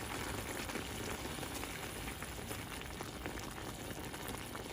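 Fish and tomatoes cooking in a pan on the stove, a steady bubbling sizzle with fine crackles; the tomatoes are not yet fully soft.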